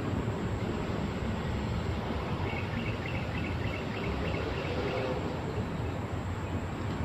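Steady outdoor background noise, low and even, with a run of quick high chirps from a small animal, insect-like, for a couple of seconds in the middle.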